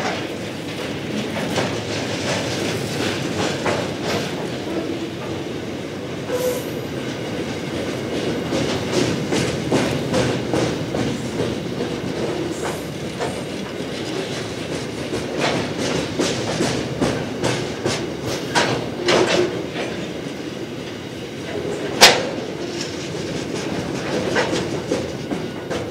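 Freight train's hopper wagons rolling past at track level: a steady rumble of steel wheels with rapid clickety-clack over the rails, and one sharp, loud clack about 22 seconds in.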